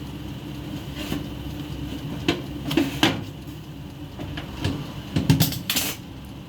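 Cooking utensils clinking and knocking against a turbo broiler's pan and rack as a whole roasting chicken is turned over, in a string of irregular clanks with the loudest cluster about five seconds in, over a steady low hum.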